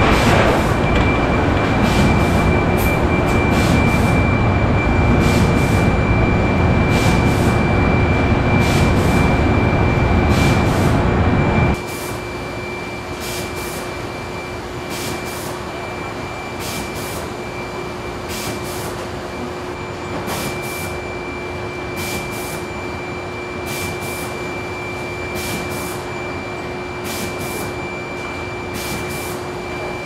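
Steady factory machine noise, loud for about the first twelve seconds, then dropping suddenly to a quieter steady running hum. A thin high whine and light regular ticks run through both parts.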